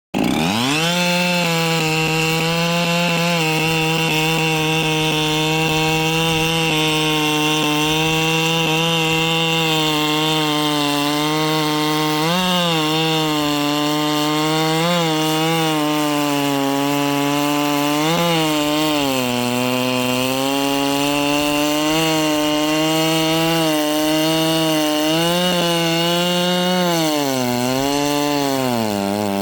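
Ported Echo CS-7310 two-stroke chainsaw running at full throttle through wood, a steady high engine note. Its pitch sags under load several times, most deeply near the end, and picks back up.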